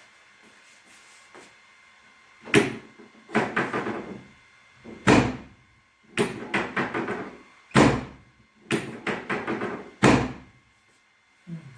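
Heavy thumps and runs of quick knocks on a chiropractic treatment table during adjustments. A single loud thump comes about every two and a half seconds, four in all, and a rapid run of smaller knocks follows each of the first three.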